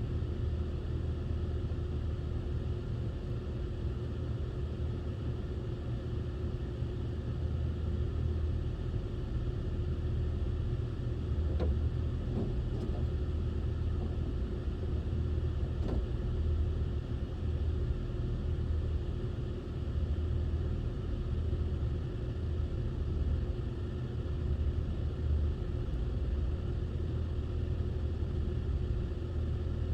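Low, steady motor vehicle rumble with a constant hum and a couple of faint clicks partway through.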